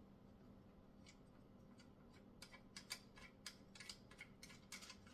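Faint light clicks and taps, one about a second in and then about a dozen in quick succession for the last two and a half seconds, from the bike repair stand's metal and plastic parts being handled and fitted together by hand.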